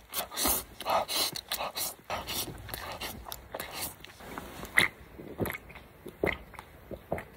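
A person slurping creamy pasta noodles with chopsticks: a quick run of short sucking slurps, then sparser short mouth sounds and swallows from about five seconds in as they drink from a can.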